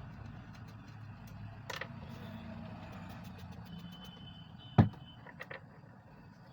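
Small clicks and taps from a needle and hands working on a mobile phone's speaker holes, with one sharper knock about five seconds in, over a steady low background hum.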